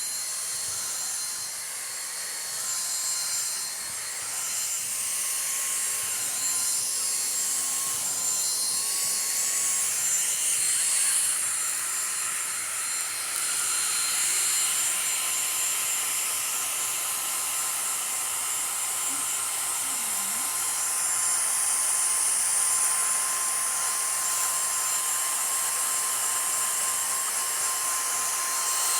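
Vacuum cleaner switched on suddenly and running steadily, its motor giving a high whine.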